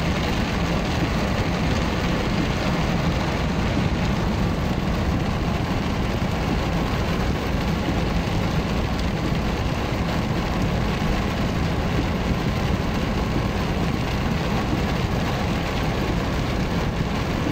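Heavy rain drumming on a car's roof and windows, heard from inside the cabin as a steady, even hiss over the low hum of the car's engine idling.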